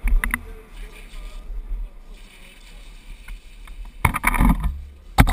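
Racing Bobby Car (plastic ride-on toy car) rolling fast on asphalt: a steady rumble from its hard wheels with wind rushing over the onboard camera, and loud clattering knocks just after the start and again from about four seconds in.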